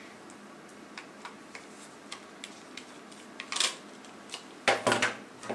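Small plastic clicks and handling of a camera battery grip's parts: a string of light ticks, a louder scrape about three and a half seconds in, and a few sharper knocks near the end.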